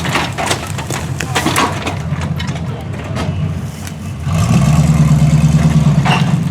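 Truck engine running steadily, then louder and heavier from about four seconds in as it is given throttle, with a few short knocks in the first two seconds.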